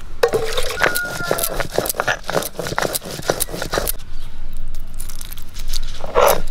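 Stone muller working on a flat grinding stone (sil-nora), crushing green and dried red chilies into paste, with clicks and knocks of stone and spice at first. A louder rhythmic grating starts near the end.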